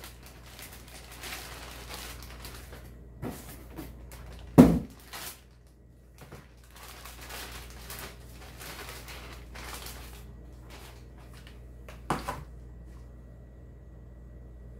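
Plastic parts bags rustling and crinkling as moulded plastic bumpers are unwrapped. A solid knock comes about four and a half seconds in, the loudest sound, and a lighter one near the end.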